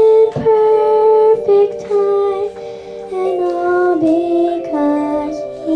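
A young girl singing a musical-theatre show tune into a microphone, with a run of sustained notes that step up and down in pitch.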